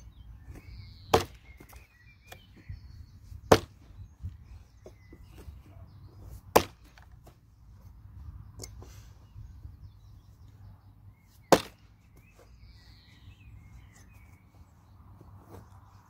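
Hultafors 1500 g Agdor axe chopping into a log: four hard, unevenly spaced blows, with a few lighter knocks in between.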